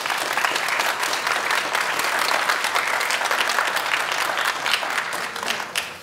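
Audience applauding, many hands clapping at once, steady and then thinning out near the end.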